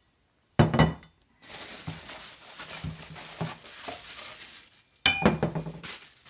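Metal parts of a chainsaw mill being handled and set down: a loud clank about half a second in, a few seconds of rustling and rattling, then another clank with a short metallic ring near the end.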